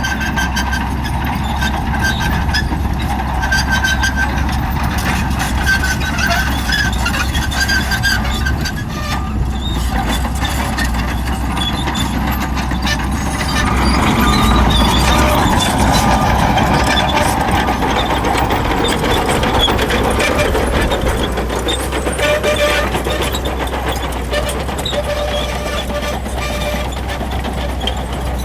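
Shantui crawler bulldozer working: its diesel engine runs steadily under load, with high-pitched squealing tones from the steel tracks. It gets louder for a few seconds around the middle.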